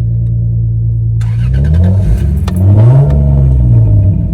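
Lexus IS300's straight-six engine idling, then revved twice in quick blips, the second rev the louder, before dropping back toward idle.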